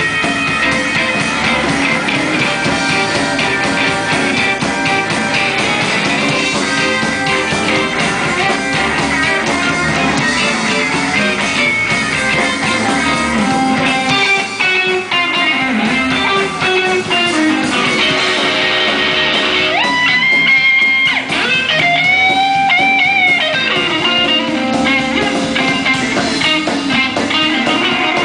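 Live electric blues band playing an instrumental passage: electric guitar lead over bass guitar and drums, with bent notes a little past the middle.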